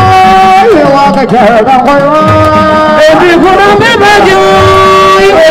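A woman singing a cappella into a microphone, holding long notes and sliding between them in ornamented runs.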